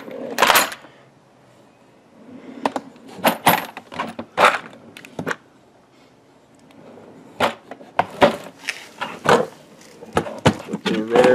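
Drawers of a Keter plastic tool chest being pulled open and pushed shut, with metal hand tools clinking and rattling inside them. The clicks and clatter come in bursts, with two short pauses.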